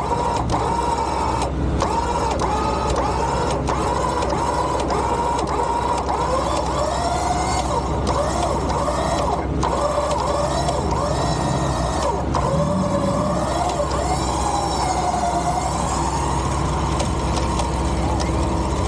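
Electric winch (Harbor Freight Badlands 12K Apex) whining steadily under load as it slowly drags a stuck Jeep through mud. Its pitch wavers up and down as the load shifts, over a low engine hum.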